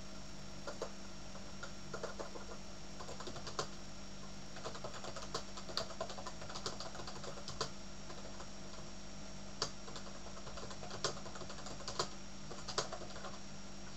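Typing on a computer keyboard: irregular runs of key clicks with short pauses between them, over a steady background hum.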